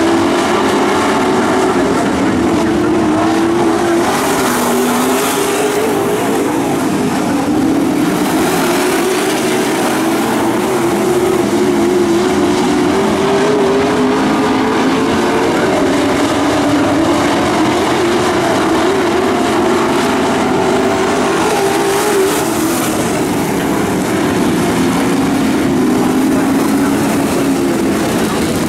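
A field of dirt-track pro trucks racing, their engines at high revs. The engine note keeps rising and falling as the trucks lift and accelerate through the turns.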